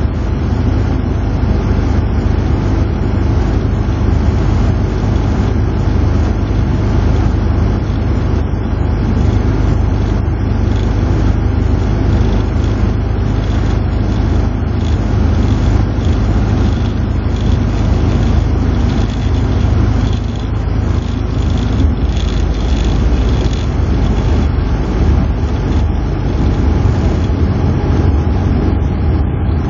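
Moskvitch 412's four-cylinder engine running, with tyre and road noise, heard from inside the cabin while driving at a steady speed. The engine note drops about two-thirds of the way through.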